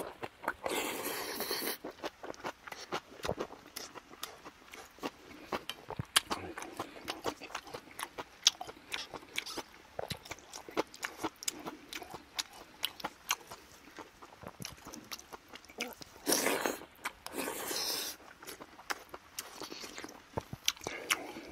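Close-up eating sounds: slurping spoonfuls of gukbap rice soup near the start and again about three-quarters through, with chewing and many small crunches and clicks in between.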